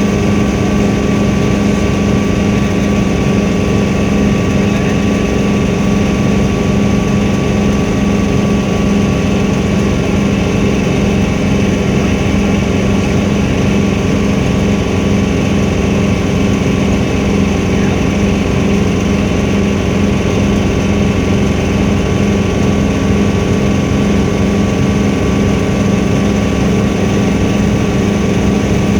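Helicopter running, heard from inside the cabin: a loud, steady drone with a strong low hum and several steady higher tones, unchanging throughout.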